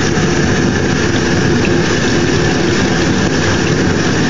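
Steady rushing noise of rinse water running from a hose over a chicken in a metal utility sink, with a faint steady hum underneath.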